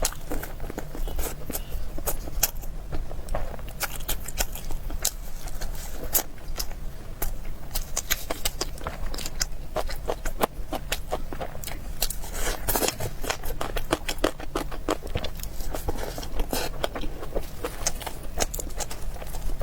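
Close-miked eating: a person biting and chewing food, with many sharp crunches and wet mouth clicks in quick succession.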